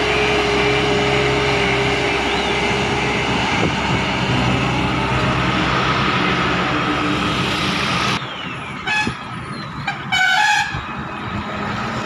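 Diesel engine of a JCB VMT860 tandem road roller running steadily close by for about eight seconds, then cutting off abruptly. After that, vehicle horns toot twice briefly, the second toot a little longer.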